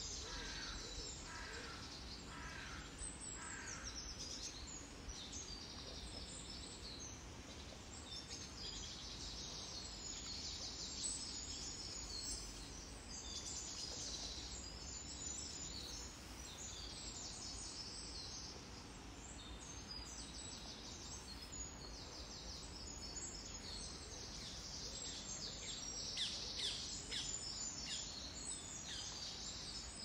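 Small birds chirping and twittering outdoors, with a run of four evenly spaced lower calls in the first few seconds and busier chirping near the end, over a steady low rumble.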